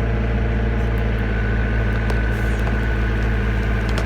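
Engine-driven hydraulic power unit of a rock splitter running steadily, with a thin high whine coming in about a second in as the hydraulics build pressure.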